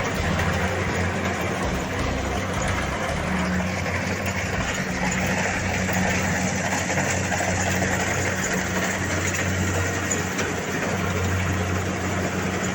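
Rice combine harvester's engine running steadily: a constant low hum under a dense, even mechanical noise.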